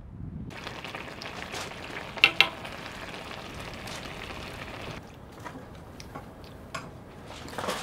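A saucy red stew sizzling and bubbling in a wide pan as a wooden spoon stirs it, with a steady hiss that drops to a softer simmer about five seconds in. Sharp utensil clicks against the pan, loudest twice about two seconds in, with lighter clicks later.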